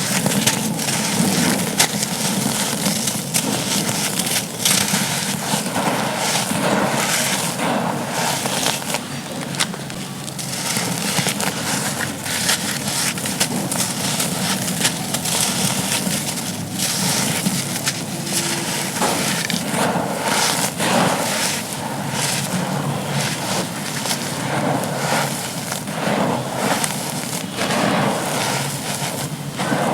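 Dry charcoal chunks being crushed and crumbled: a dense, gritty crackling of many small breaks, without pause.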